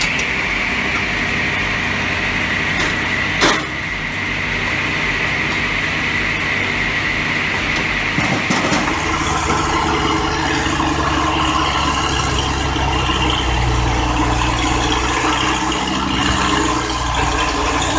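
Heavy diesel machinery running steadily. Over the first half a high, slightly falling whine sits on top, with one sharp click at about three and a half seconds; from about nine seconds a deeper, heavier engine sound takes over.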